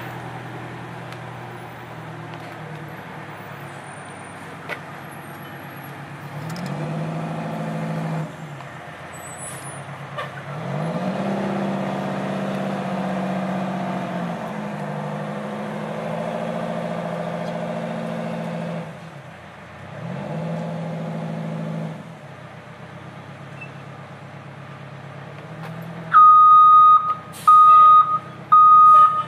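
Fire truck engine running as it drives slowly, revving up and easing off several times. Near the end a loud reversing alarm starts beeping about once a second.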